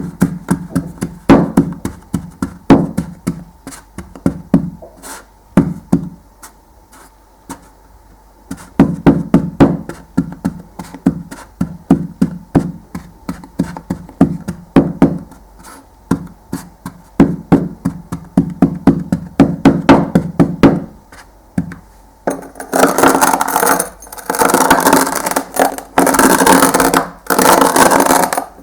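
Kinetic sand being cut with a knife: many short, sharp slicing strokes in quick clusters. About 22 seconds in it changes to longer, denser stretches of a second or two each, hissier and brighter, with short breaks between.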